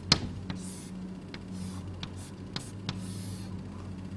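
Hand-writing sounds: short scratchy strokes and scattered light ticks and taps of a pen against the writing surface, over a steady low hum.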